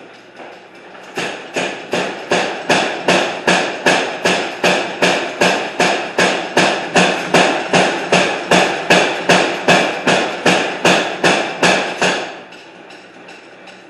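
Hammer blows on hot iron being forged into a square bar: an even run of sharp strikes, about three a second, starting about a second in and stopping about twelve seconds in. A steady hum or rush sits underneath.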